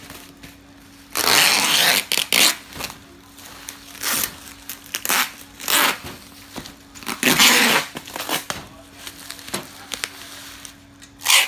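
Plastic bubble wrap crinkling and rustling in irregular loud bursts as hands wrap it around a cardboard box and press it down, with a sharp burst near the end. A faint steady hum runs underneath.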